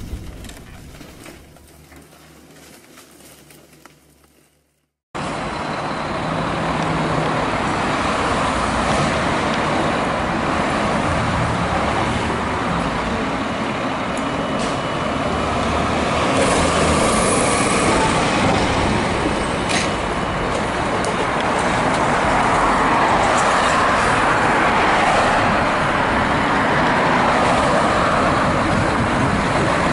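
A boom fades out over the first few seconds, then cuts to silence. About five seconds in, fire apparatus diesel engines are heard running as the fire truck and engine pull out of their station bays.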